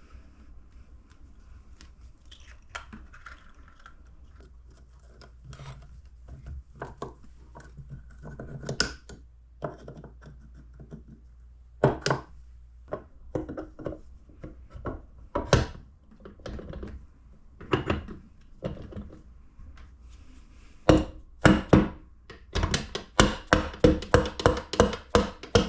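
Steel gears, shafts and shift parts of an ATV transmission being handled and fitted by hand: scattered metallic clicks and knocks, turning into a quick run of clicks over the last few seconds.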